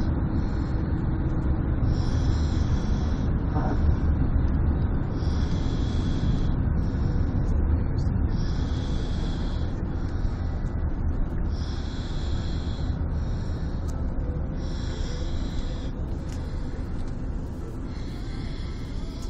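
A sleeping person snoring, with noisy breaths in and out in a regular cycle of about one every three seconds, over a steady low rumble.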